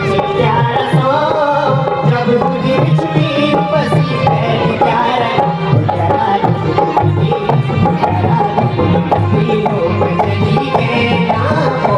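Instrumental break in a folk song: a steady hand-drum beat under a wavering melody line, with no singing.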